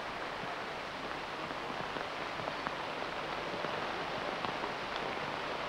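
Steady rain falling, an even hiss with scattered small ticks of drops.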